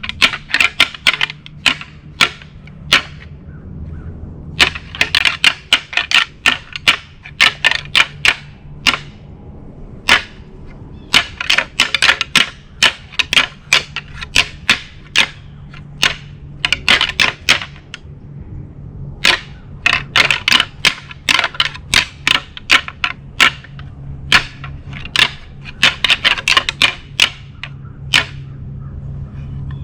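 Hard objects knocking together rapidly, many sharp clacks a second, in about five bursts of a few seconds each with short pauses between.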